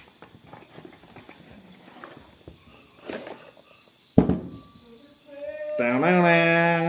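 Whisky bottle slid out of its cardboard gift box, with faint rustling and scraping of the cardboard, then a knock about four seconds in as the box is set down on the table. Near the end a person's voice holds a long, rising then steady note, the loudest sound.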